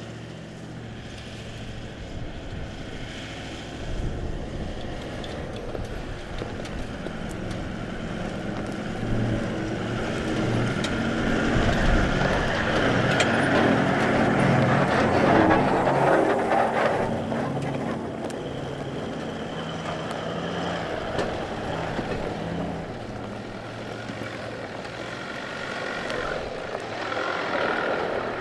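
A four-wheel-drive vehicle's engine running as it drives, growing louder toward the middle and then easing off.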